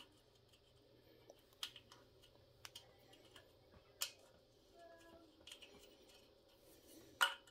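A small metal nut and washer clicking and tapping as they are fitted by hand onto the ground-wire bolt of a Honda Z50 frame: a few faint, scattered clicks.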